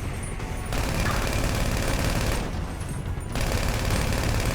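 Rapid automatic gunfire from a video game, almost continuous, with brief lulls near the start and a little past the middle.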